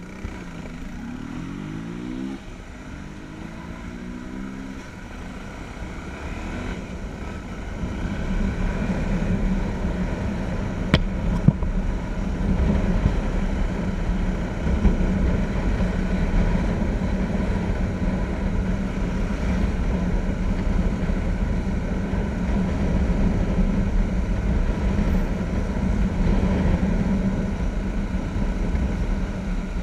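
Motorcycle engine accelerating from a stop, pitch rising twice through two gears, then cruising at a steady drone, with wind rumble on the helmet-mounted microphone growing as speed builds. One sharp click about eleven seconds in.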